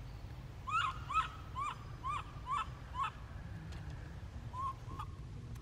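An animal calling: a run of about seven short, rising-and-falling notes, about two a second, then two fainter notes near the end.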